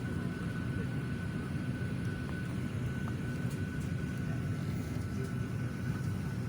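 Steady low cabin noise inside an airliner, with a faint steady high whine and a few light clicks.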